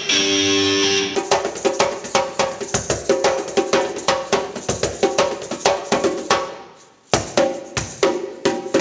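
Live band playing in a sound check: a held chord for about a second, then a busy drum-kit groove with pitched instrument notes over it. The music fades out briefly about seven seconds in and starts again.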